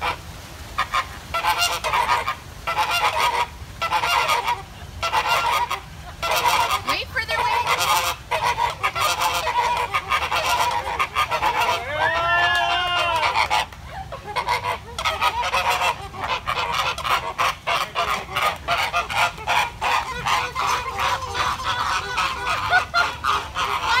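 A flock of American flamingos honking in a continuous chorus of repeated goose-like calls, part of their group display of head-turning and wing-flapping. About halfway through, one arched, wavering call stands out above the rest.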